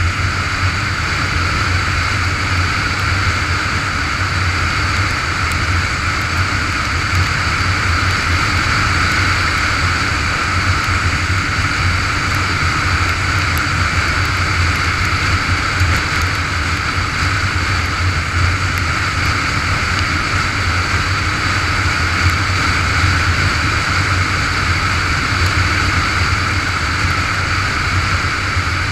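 Motorcycle running steadily at cruising speed on the highway, its engine drone mixed with constant wind and road noise.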